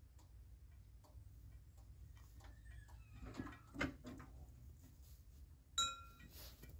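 Mechanical, remotely worked level-crossing barriers rising to upright and settling: faint creaks and clicks from the booms and their drive, a louder knock about halfway, and a sharp metallic clank that rings briefly near the end, over a low rumble.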